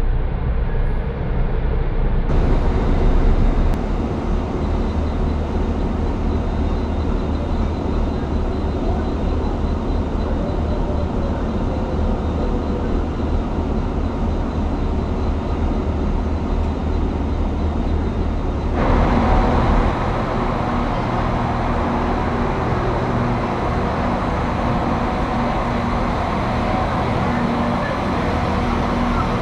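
Irish Rail passenger trains running through stations: a steady low rumble of a passing train. About 19 seconds in, the sound switches to a 22000-class Intercity Railcar moving along the platform, with a steady diesel engine hum.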